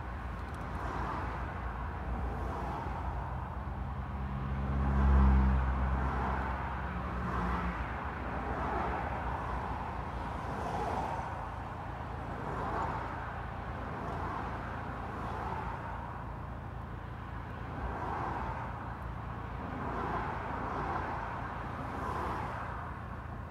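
Car engine idling steadily, heard from inside the car with the windows slightly open, with traffic passing outside. About four seconds in, a louder low engine drone swells and fades over a couple of seconds.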